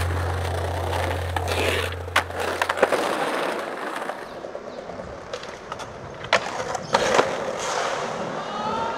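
Skateboard wheels rolling on city pavement, with sharp clacks of the board hitting the ground a couple of seconds in and again around six to seven seconds in. A low hum fades out over the first two or three seconds.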